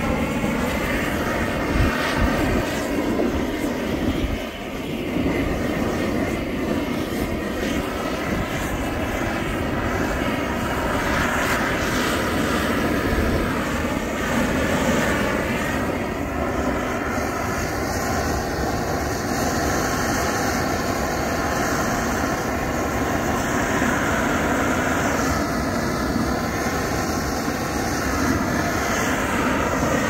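Propane weed-burner torch burning with a steady roar, its flame played over the wooden boards of a nesting box to char them.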